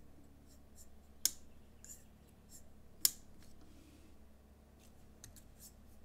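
Titanium framelock folding knife being worked open and shut: two sharp metallic clicks about two seconds apart, with fainter ticks between and near the end, from the blade passing its detent and lock with the detent-ball tension backed off.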